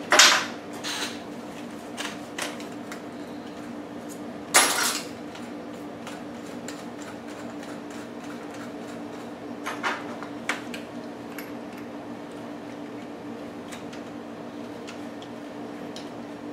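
Clinks and rattles of small tools and parts being handled and set down. There is a loud clatter right at the start, another just under five seconds in, and lighter clicks around two and ten seconds in, all over a steady low hum.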